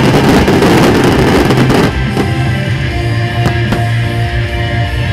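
Aerial fireworks bursting and crackling densely over loud music. The crackle stops about two seconds in, leaving the music with a few sharp bangs.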